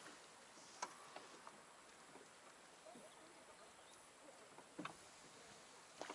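Near silence with a few faint, short clicks, the clearest about a second in and about five seconds in.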